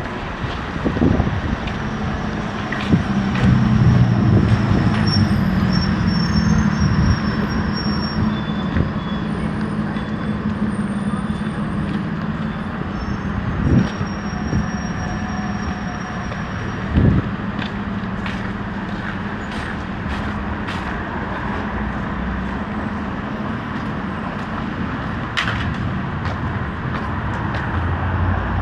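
City street traffic: a vehicle engine hums steadily close by, loudest a few seconds in, over general road noise, with two short knocks in the middle.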